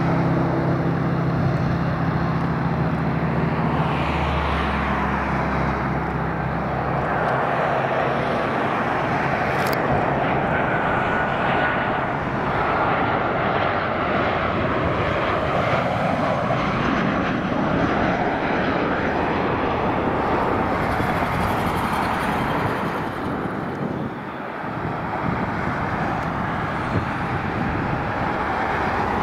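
Jet engines of a landing Southwest Airlines Boeing 737, a steady loud engine noise as the airliner passes close on approach, with a low steady hum under it for the first several seconds and one sharp click about ten seconds in.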